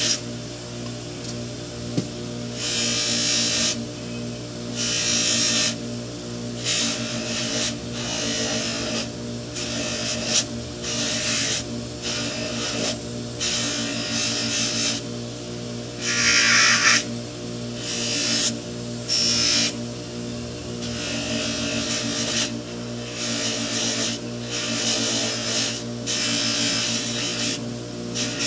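Bench buffer's motor running with a steady hum while a briar pipe is pressed against its spinning cloth buffing wheel, charged with red rouge compound. Each press makes a short rough rushing rub, repeated about once a second. This is the first polishing stage of a pipe restoration.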